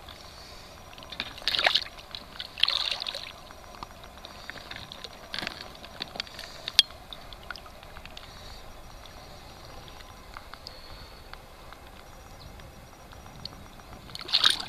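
Caught pike splashing at the water's surface as it is pulled up on a chain stringer beside the boat: a few short splashes, the loudest about a second and a half in and again near the end, with a single sharp click in the middle.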